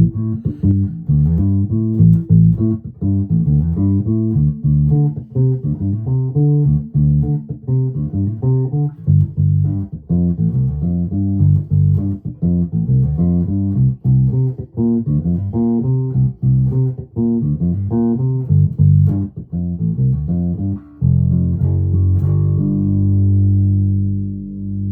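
1996 Alembic Epic four-string electric bass, volume full and its active bass and treble controls at their centre detents, played through an Orange Crush 100 bass amp: a busy run of quick plucked notes, then near the end a few held notes left ringing.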